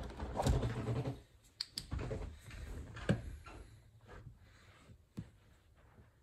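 Rustling and light clicks from hands handling a small electrical safety switch and a flashlight: a louder rustle in the first second, then a few sharp isolated clicks.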